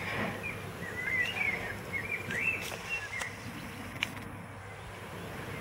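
A Greater Swiss Mountain Dog puppy gnawing on a knucklebone, with a few sharp clicks of teeth on bone, while a bird chirps in the background through the first three seconds.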